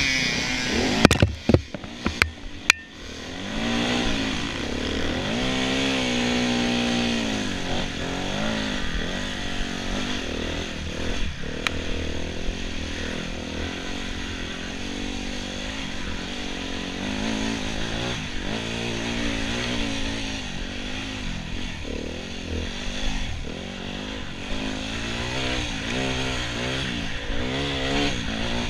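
Enduro motorcycle engine revving up and down again and again as it is ridden, its pitch rising and falling with the throttle. A few sharp knocks and clatters come from about one to three seconds in.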